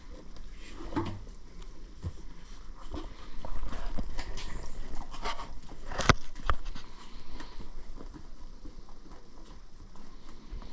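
Scattered clicks, knocks and rustles of hands handling a motorcycle seat and its fittings. The sharpest knock comes about six seconds in.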